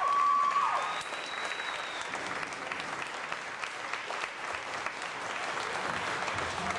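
Audience applauding with steady, dense clapping. A high held whoop from the crowd ends with a falling glide under a second in.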